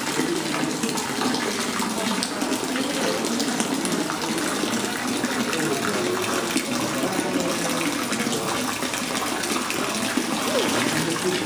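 Water running and splashing steadily into a koi pond, with people's voices murmuring faintly underneath.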